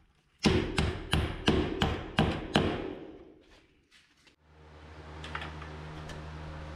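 About seven hammer blows in quick succession, roughly three a second, with a slight ring. After a short pause a steady low motor hum starts about four and a half seconds in.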